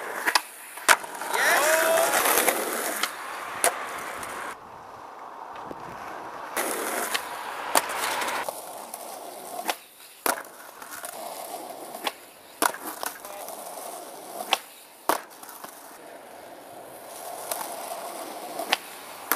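Skateboard wheels rolling on asphalt, broken by a dozen or so sharp clacks of the board's tail popping and the deck landing.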